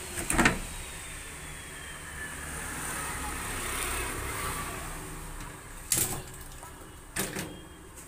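Sheet-metal top cover of a washing machine being slid off and handled: a sharp knock at the start, then two more knocks about six and seven seconds in.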